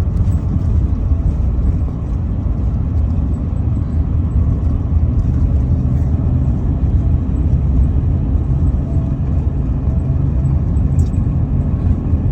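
Steady low rumble of a Chevrolet car on the move, engine and road noise heard from inside the cabin.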